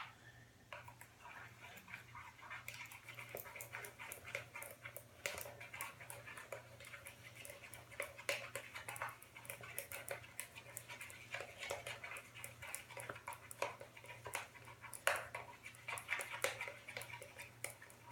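Slime mixture of glue and shaving foam being stirred with a paintbrush in a bowl, with irregular clicks and sticky scraping.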